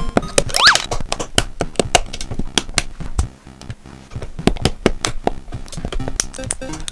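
Plastic LEGO bricks clicking and clattering as pieces are handled and pressed onto a model, many sharp clicks, with a short rising squeak under a second in and a quieter stretch about three to four seconds in.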